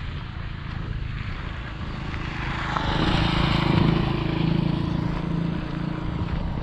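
Small motorcycle engine running, growing louder about two and a half seconds in and then holding a steady buzz.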